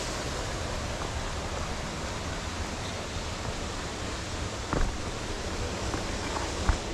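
Steady rush of a waterfall, an even wash of falling-water noise, with two brief knocks, one a little past the middle and one near the end.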